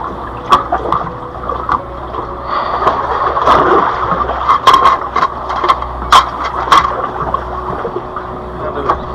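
Water sloshing and splashing in a gap between shoreline rocks as freshwater drum on a stringer are handled in it, with a run of sharp splashes, the strongest about five to seven seconds in, over a steady low rumble.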